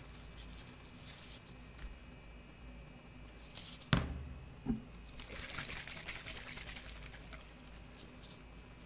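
Gloved hands handling a paper cup of rolled ice cream on a steel cold plate: faint rustling, a sharp knock about four seconds in as the cup meets the metal, a lighter knock just after, then soft rustling.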